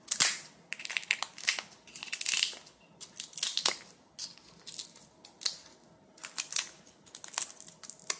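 Crinkling and rustling of chili powder packaging in many short, irregular bursts as the pepper powder is handled and sprinkled.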